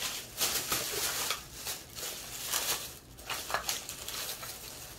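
Thin plastic shopping bag rustling and crinkling on and off as hands rummage through it.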